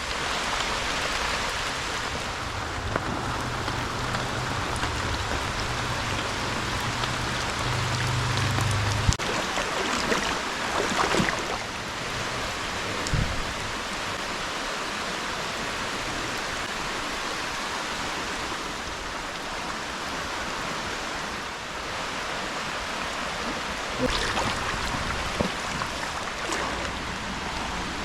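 Steady hiss of rain falling on a creek and its running water. A low rumble underlies the first nine seconds and cuts off suddenly, and a few light knocks come through later.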